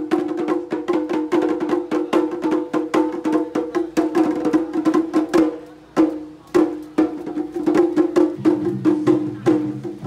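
Drum troupe playing large barrel drums with sticks: a fast, dense stream of hard strikes with sharp clicking hits. The playing thins out briefly just before the middle, then two loud accented hits follow.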